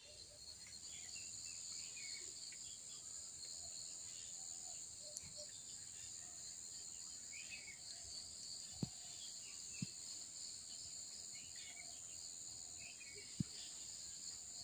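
Steady high-pitched insect chorus, with faint short chirps scattered through it and three brief soft clicks in the second half.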